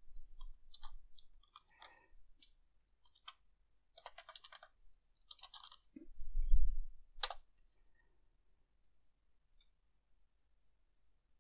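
Keystrokes on a computer keyboard in irregular clusters as a username and password are typed in. A dull thump about six and a half seconds in is the loudest moment, followed closely by one sharp click.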